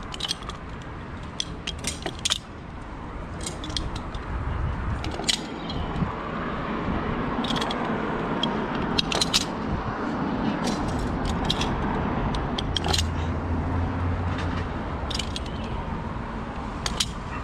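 Metal snap hooks on a climbing harness's twin lanyards clinking and clicking as they are unclipped and re-clipped on a tall ship's rigging, a sharp click every second or two, over a steady rushing noise.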